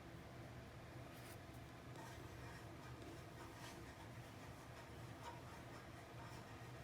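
Near silence: low room hum with a few faint, short scratching ticks.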